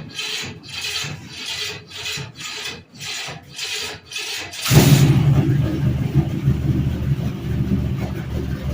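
Starter cranking the 1954 Plymouth Savoy's engine in a slow, even rhythm of about two turns a second, on a cold battery; about four and a half seconds in the engine fires and settles into a steady, louder run.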